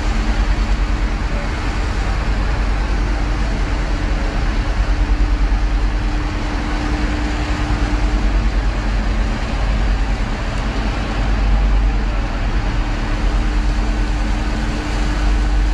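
A ferry's engines run steadily while the water churns white at the stern, giving a deep rumble under a steady hum.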